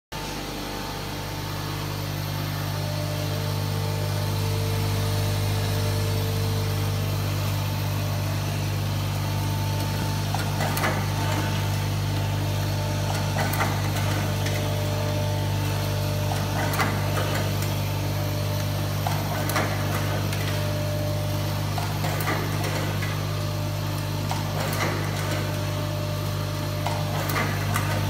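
Automatic nylon cable tie tying machine running: the vibratory bowl feeder gives a loud steady low hum, and from about ten seconds in the tying head clatters briefly every two and a half to three seconds as it feeds, wraps and cuts a tie on each cycle.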